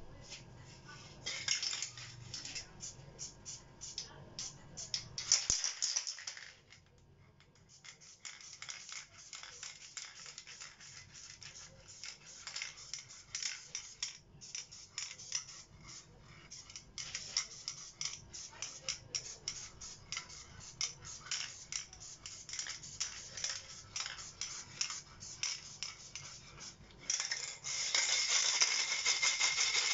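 Aerosol spray paint hissing in short bursts, amid many small clicks and clinks of cans and objects being handled; a longer, louder steady spray starts near the end.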